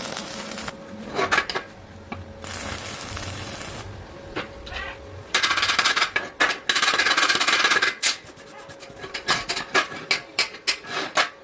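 Scraping or rasping noise in several bursts of about a second each, followed by a quick run of sharp clicks and knocks near the end.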